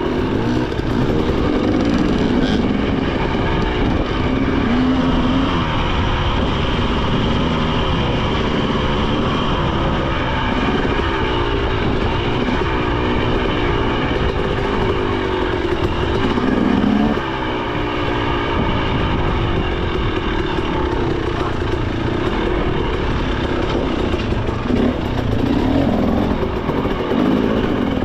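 A 2023 KTM 300 XC two-stroke dirt bike engine being ridden along a trail, its revs rising and falling continually as the rider works the throttle, with a short drop in level about 17 seconds in.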